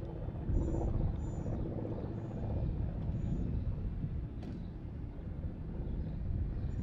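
Low, steady outdoor rumble of wind and distant engines, with faint short high chirps about once a second early on and a single click about four and a half seconds in.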